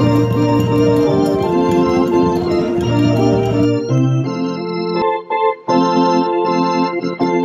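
Slow background music on organ, with sustained chords over held bass notes. A little under four seconds in, the sound changes suddenly to a thinner keyboard texture, with short dips between the notes.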